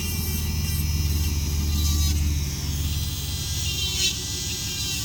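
High-speed podiatry drill running with a burr against a thickened toenail, grinding it down: a steady low motor hum that is loudest around two seconds in, with a faint high hiss from the burr.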